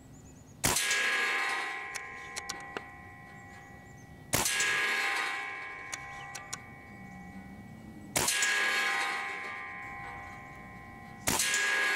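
Four shots from a .25-calibre Benjamin Gunnar regulated PCP air rifle, a little under four seconds apart. Each shot is a sharp crack followed by a metallic ringing that fades over about three seconds, with a few faint clicks between shots.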